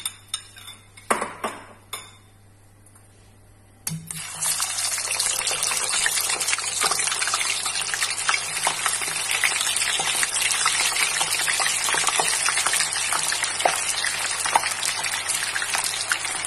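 A few sharp clinks, then about four seconds in kubba patties go into very hot oil and the oil sizzles loudly and steadily as they deep-fry.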